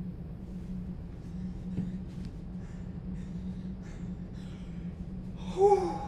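A low steady hum with a few faint breaths, then, about five and a half seconds in, a person's short, loud voiced gasp.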